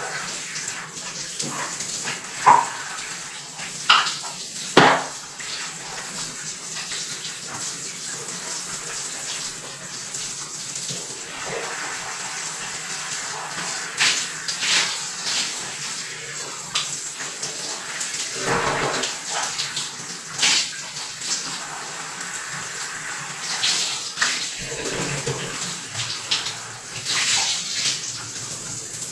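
Water in a jacuzzi tub: a steady rush of water, with scattered splashes and knocks, the loudest three about two to five seconds in.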